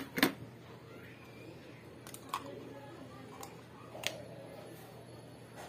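A few short, sharp plastic clicks and taps from a lipstick tube and its cap being handled, the loudest just after the start and the rest spread over the next four seconds.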